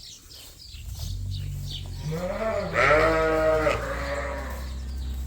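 A ewe bleating: one long call that rises in pitch about two seconds in, is loudest for the next second and then falls away. A low steady hum runs underneath from about a second in.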